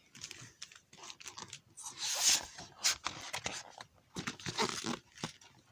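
Paper rustling as a picture book's page is handled and turned, with scattered soft clicks and a louder rustle about two seconds in and again around four seconds in.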